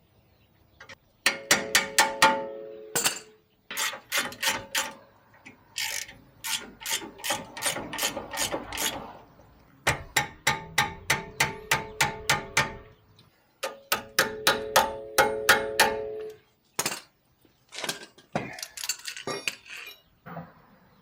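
Hand ratchet wrench clicking in quick runs of strokes, about four or five clicks a second, with a ringing metallic tone and short pauses between runs.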